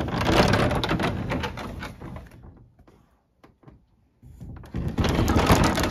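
Old wooden sliding door rattled open along its track in two pushes: a scraping rumble over the first two seconds or so, a quiet gap, then a second scraping rattle near the end.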